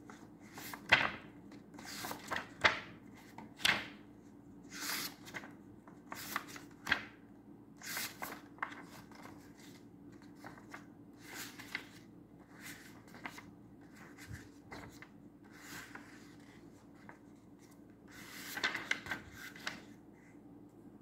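Pages of a large illustrated children's Bible being turned by hand in search of a picture: quick paper swishes and rustles about every second at first, sparser midway, with a longer rustle near the end.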